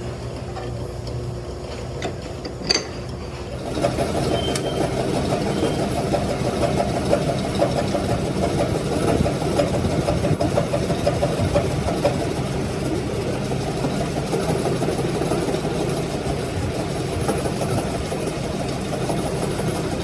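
A steady machine hum with one sharp click, then about four seconds in a louder, rough mechanical running sound starts and keeps going steadily.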